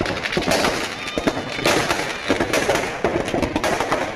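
Firecrackers packed inside a burning Ravana effigy going off in a rapid, irregular string of bangs and crackles.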